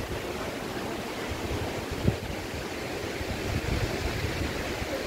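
Wind buffeting the microphone: a steady rushing noise with irregular low rumbles, and a single short thump about two seconds in.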